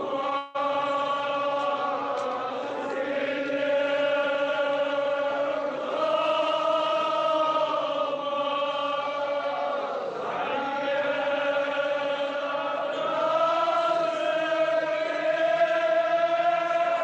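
Men chanting a Kashmiri marsiya, the mourning elegy, together in long drawn-out notes that slide slowly in pitch, with a brief dropout in the recording about half a second in.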